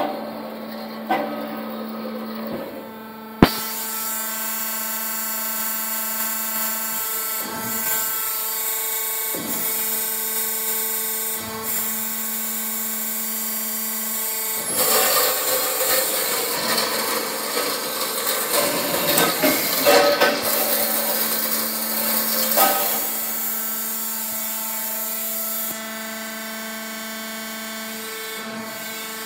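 Metalkraft BMBS 290x290 metal-cutting band saw running with a steady hum and whine. About three seconds in there is a sharp click, after which a bright hiss of the blade cutting joins it. The cutting turns louder and rougher through the middle, then the hiss stops near the end and only the machine's hum remains.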